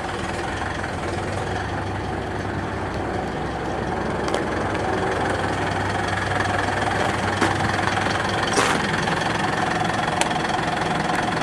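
Truck engine idling steadily, with a few sharp clicks and knocks from the cab as the operator climbs in and works the controls, the loudest knock about three quarters of the way through.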